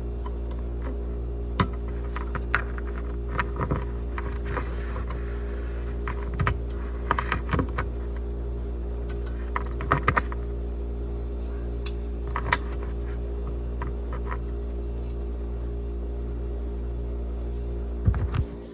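Scattered clicks and knocks of objects being handled, with a tape measure among them, over a steady low hum that cuts off suddenly near the end.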